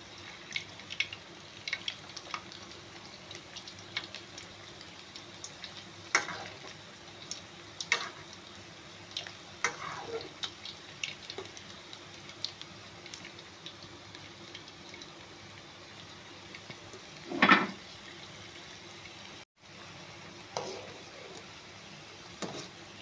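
Vegetable manchurian balls deep-frying in hot oil in a metal kadai: a steady sizzle with scattered crackles, and a ladle stirring and clinking against the pan, with one louder clunk about 17 seconds in.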